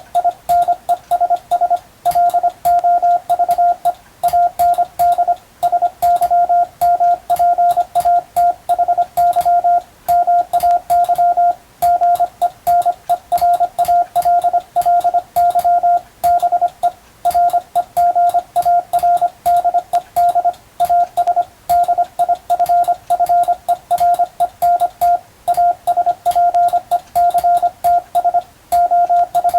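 Morse code (CW) keyed by hand as a steady tone of about 700 Hz, switching on and off in dots and dashes with short gaps between letters and words. It is sending English-language telegram practice text for radiotelegraph receiving practice. Faint clicks come with the keying.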